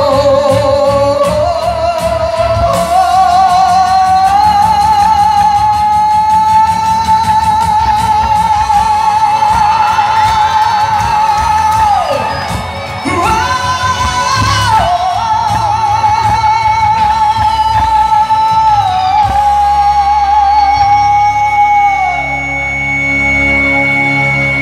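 Male singer singing live over an amplified backing track, holding long notes with vibrato. The voice breaks off briefly about halfway, then holds another long note, and stops near the end, leaving the backing music playing.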